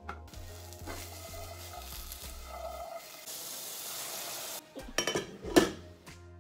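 Green beans dropped into a hot saucepan and water poured in from a plastic container, sizzling and hissing as it hits the pan. A glass pot lid then clatters into place, with one loud clink near the end.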